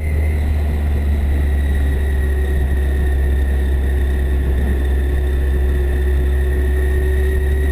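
Kawasaki Concours motorcycle engine running steadily with a constant low rumble and an even, slowly drifting tone.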